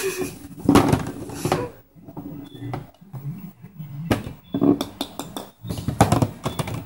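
Golf balls knocking and clacking against a plastic putting mat and against each other as a kitten bats them about: a string of irregular sharp knocks.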